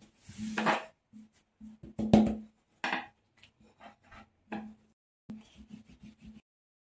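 Long thin wooden rolling pin (oklava) rolling and knocking on a wooden tabletop as paper-thin yufka dough is wound onto it and spread out again: a series of short, irregular knocks and rumbles.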